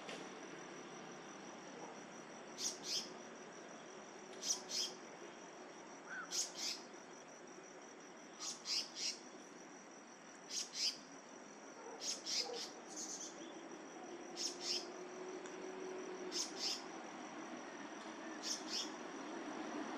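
Short high-pitched chirps, two or three at a time, repeating about every two seconds over a faint steady high whine and a low outdoor hiss.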